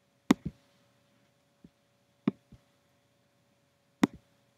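Computer mouse clicks: three sharp press-and-release pairs, about two seconds apart.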